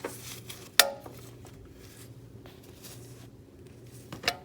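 Two short, sharp clicks with a brief ring, a loud one about a second in and a smaller one near the end, over a steady low hum.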